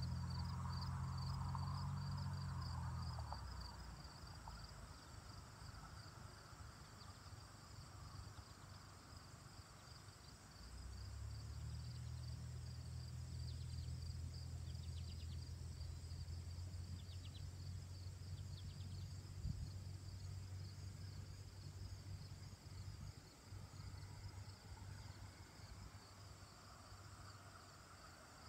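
Summer insects chirping in a steady, fast-pulsing high trill. A low steady hum sounds over them for the first few seconds and again from about eleven seconds in, fading out a few seconds before the end.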